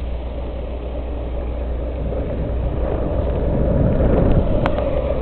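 Wind buffeting the microphone while moving down a street: a steady low rumble that grows louder toward the end, with one sharp click near the end.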